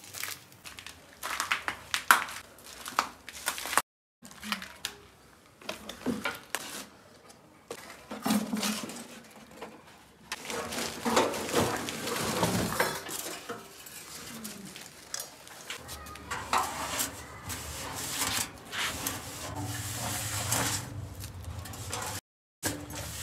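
Irregular metal clanks and knocks with rustling, as junk is shifted about and an old stainless steel kitchen sink is pulled out and handled.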